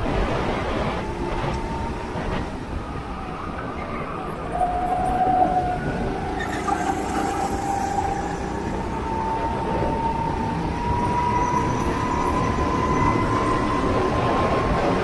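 Go-kart engine running at speed, its whine climbing slowly in pitch from about five seconds in as the revs rise, over a dense rumble of noise.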